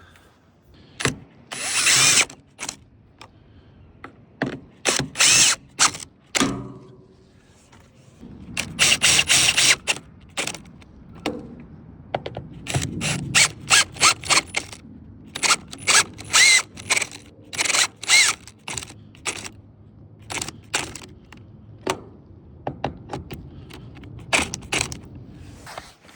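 Hex cap bolts being driven down with a power driver, in repeated short bursts of rapid clicking and whirring with pauses between them.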